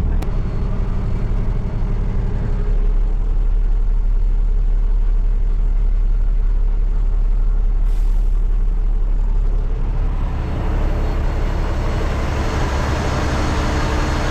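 Diesel engine of a 2007 Kenworth dump truck running steadily, its low hum shifting a few seconds in. A hiss builds up over the last few seconds.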